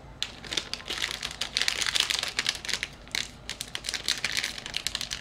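Plastic snack wrapper crinkling as it is handled and opened: a dense run of quick, sharp crackles.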